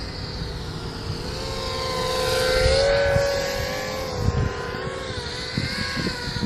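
FPV quadcopter's brushless motors and propellers whining in flight, rising in level to a peak about three seconds in as it passes close, then easing off, the pitch wavering with the throttle.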